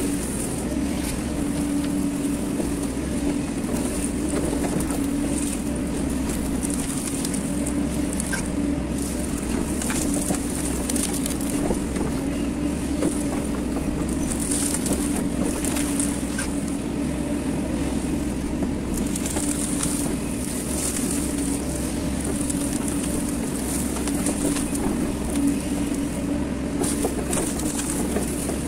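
Hyundai hydraulic excavator running steadily while working its arm and bucket, heard from the cab: a constant engine drone with a high hiss that swells and fades at times.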